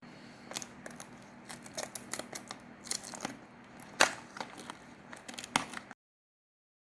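Packaging being handled and opened: irregular small clicks, snaps and crinkles, with one sharper snap about four seconds in, cutting off suddenly near the end.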